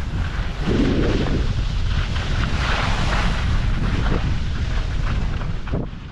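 Skis hissing and scraping through soft spring snow in surges with each turn, over a steady rumble of wind buffeting a moving microphone; it fades out near the end.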